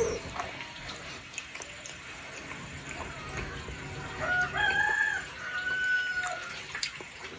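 A rooster crowing once, starting about four seconds in: a call that rises and then holds for about two seconds, over faint scattered clicks.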